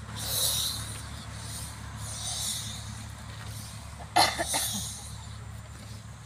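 A person's hissing, snorting breaths, with a short loud grunt-like vocal burst about four seconds in, over a steady low hum.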